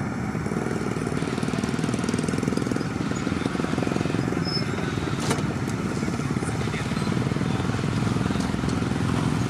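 Heavy truck's diesel engine running steadily, with one sharp click about five seconds in.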